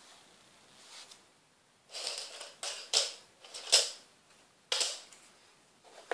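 Hard plastic of a Plano 3620 tackle box and its dividers being handled: a handful of short clicks and knocks, starting about two seconds in, the loudest near the middle.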